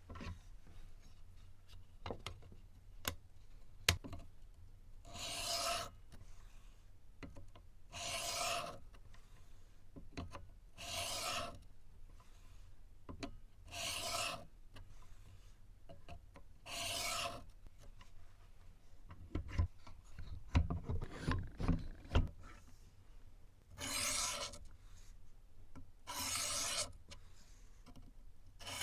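Knife blade scraped along a 600-grit sharpening stone in long strokes of about a second each, roughly every three seconds. About two-thirds through, the strokes pause for a run of knocks and taps.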